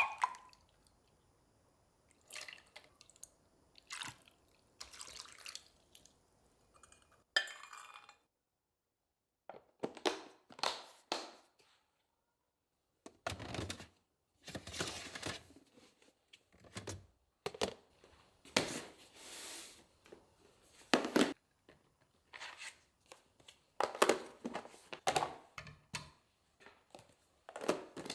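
Kitchen work sounds: a series of short clatters and clinks of dishes and containers being handled, with some dripping and splashing of water, broken by a few silent gaps.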